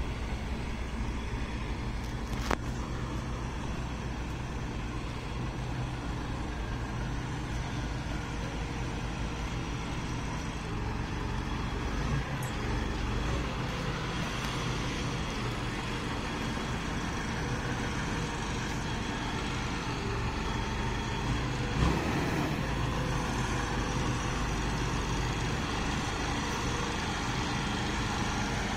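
Engine of a large boat-yard forklift running steadily as it drives, with a couple of short sharp knocks.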